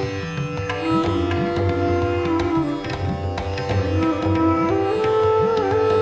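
Instrumental background music: a plucked-string melody whose held notes bend and slide, over a steady hand-drum pattern.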